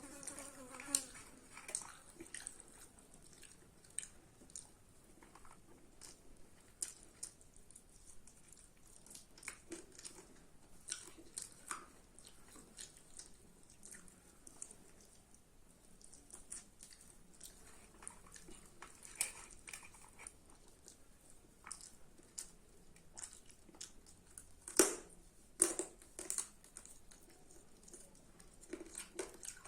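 Close-up chewing and mouth sounds of a person eating chicken curry and rice: irregular wet smacks and clicks, with a couple of louder smacks near the end.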